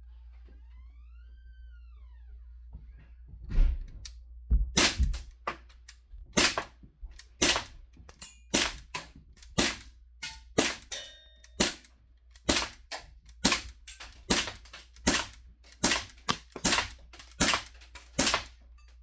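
CO2-powered airsoft BB pistol firing a magazine, about twenty sharp pops a little under a second apart, starting a few seconds in. This is the fourth magazine on a single 12-gram CO2 cartridge, and the shots are still strong.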